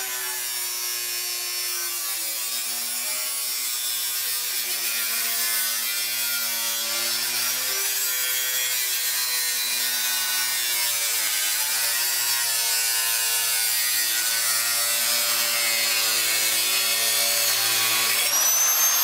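Electric die grinder grinding off the edge of the aluminium front fender, a rasping whine whose pitch dips a couple of times as the bit bites into the metal. Near the end the sound switches abruptly to a steadier, high-pitched whine.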